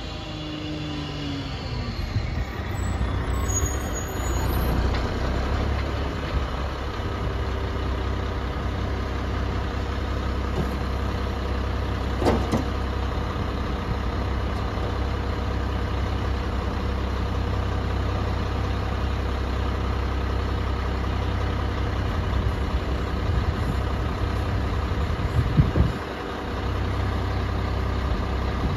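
Garbage truck's engine running with a steady low rumble. A whine falls in pitch over the first two seconds. There is a short sharp sound about twelve seconds in and a brief louder burst near the end.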